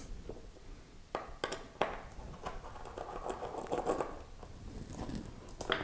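Light clicks and scratching of a small screwdriver and hand tools on a workbench, with the screwdriver worked into a screw hidden under a 3.5-inch hard drive's label. There are a few separate clicks between one and two seconds in and faint scraping after that.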